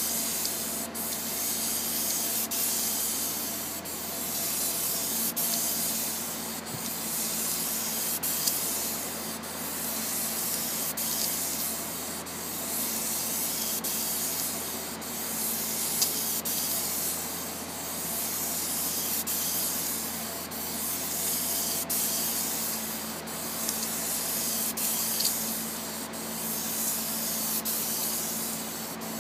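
Spray foam gun hissing steadily as it sprays polyurethane roofing foam. The hiss swells and eases every few seconds and drops out in brief short breaks, over a faint steady low hum.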